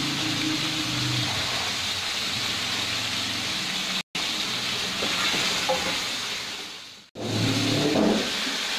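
Sliced onions sizzling in hot oil in an aluminium karahi, stirred with a wooden spoon near the end. A low motor hum runs under the sizzle at the start and again near the end. The sound drops out briefly about four seconds in, then fades away and comes back about seven seconds in.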